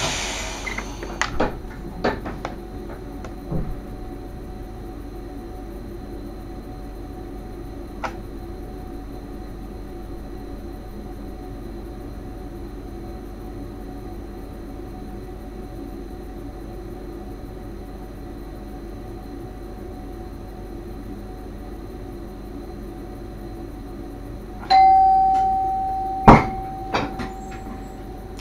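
Driver's cab of an NS Sprinter train with a steady running hum. At the start there is a short hiss of air and a few clicks. Near the end a single loud chime rings out and fades over a second or two, followed by a sharp click and a few lighter clicks.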